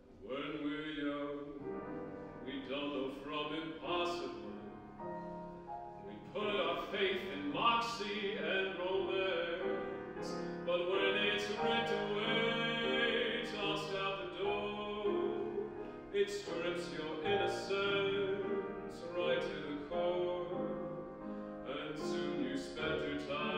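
A male singer sings a musical-theatre song to grand piano accompaniment, holding some notes with vibrato.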